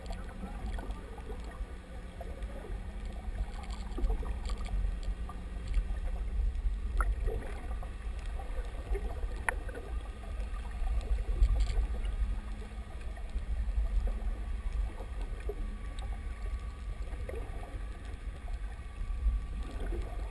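Muffled underwater sound picked up by a GoPro in its waterproof housing: a steady low rumble of water moving around the camera, with a faint hum that stops about six seconds in and a few scattered clicks.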